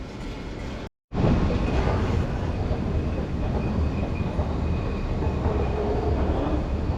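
French-built high-speed train running: a steady low rumble with a faint thin high whine above it, starting abruptly about a second in.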